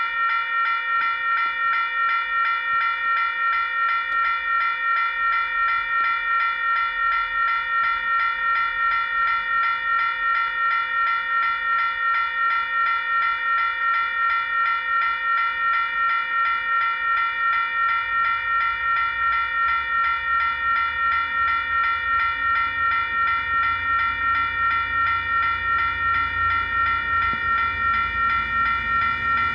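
Level-crossing alarm bell ringing in a fast, even rhythm. In the last dozen seconds the low rumble of an approaching diesel-hauled freight train builds beneath it.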